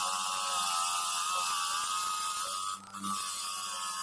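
Wire wheel on a bench grinder scouring rust from a steel adjustable wrench: a steady, loud scratchy hiss with a whine. It breaks off briefly near three seconds in, leaving the grinder motor's hum.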